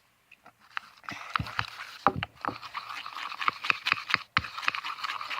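Homemade soap-and-contact-solution slime squished and stretched in the hands: a rapid run of wet clicks and pops over a sticky crackling hiss, starting about a second in.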